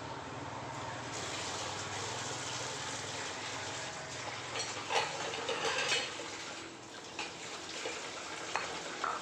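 Kitchen tap running steadily over dishes being washed by hand, with a few knocks of dishes clattering in the sink about halfway through and again near the end.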